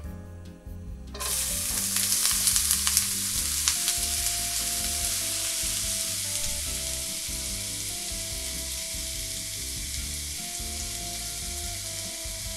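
Chopped onions dropped into hot oil in a frying pan, sizzling: the sizzle starts suddenly about a second in, crackles loudest over the next few seconds, then settles to a steady sizzle.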